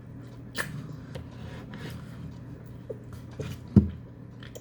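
Small clicks and mouth sounds of a toddler eating at his seat, with a short low thump a little before the end, over a steady low room hum.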